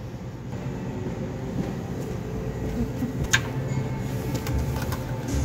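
Lottery ticket vending machine running steadily as it dispenses a scratch ticket, with a sharp click about three seconds in.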